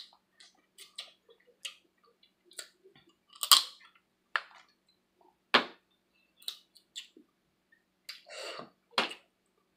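Close-up eating sounds: wet smacks and clicks of someone chewing and sucking sauced blue crab meat eaten by hand, loudest twice, about three and a half and five and a half seconds in.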